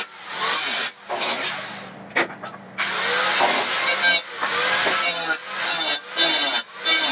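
Steel being cut or ground with a tool for the forge base, in short bursts with brief pauses between them, the pitch bending as the load changes.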